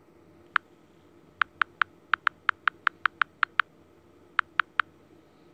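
Short sharp ticks of touch feedback as a smartphone's + button is tapped repeatedly: one tick, then a quick run of about a dozen at roughly five a second, then three more near the end.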